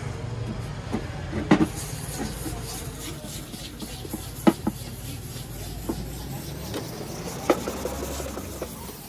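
Hands rubbing and handling a plastic car tail light lens on a concrete floor, with a few sharp plastic knocks about three seconds apart over a steady low traffic rumble.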